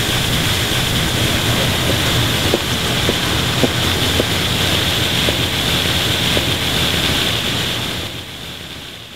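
Water fountain splashing, a steady rushing spray of falling water that fades out near the end.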